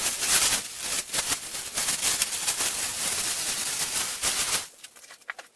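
Clear plastic wrapping being pulled off a milling machine and crumpled, a loud continuous crinkling and rustling that stops about four and a half seconds in, leaving a few faint clicks.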